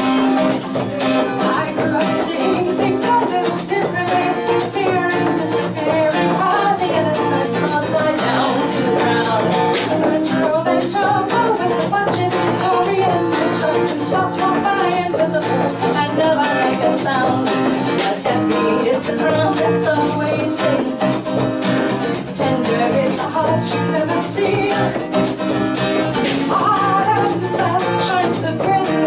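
Live acoustic folk song: a steadily strummed acoustic guitar with a frame drum keeping the beat, and a woman singing over it.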